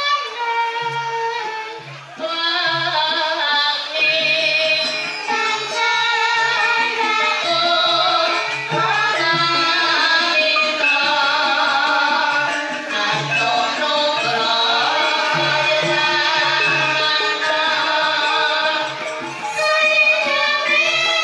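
Javanese gamelan ensemble playing a Banyumasan gending: bronze metallophones and kettle-gongs ringing in steady interlocking patterns, with short low notes keeping the beat and a voice singing above the ensemble.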